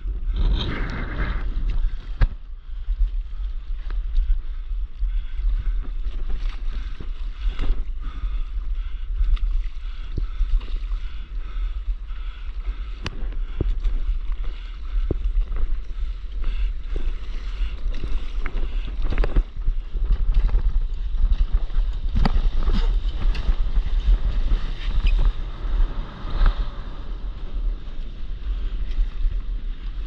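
Wind rumbling on the microphone just above open sea, with water sloshing and splashing and a scattered knock now and then.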